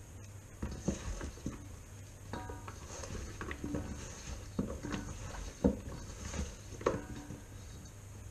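Potato slices being tossed in flour by hand in a stainless steel mixing bowl: soft patting and shuffling, with the metal bowl clinking and knocking now and then.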